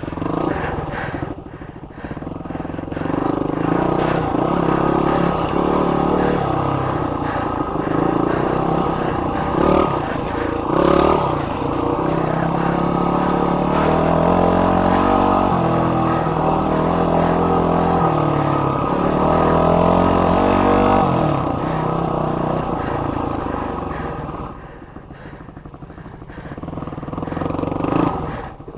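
Yamaha WR250 single-cylinder motorcycle engine, revving up and falling back in steps as it runs through the gears. About three-quarters of the way in it drops to a quieter, lower running, then picks up again near the end.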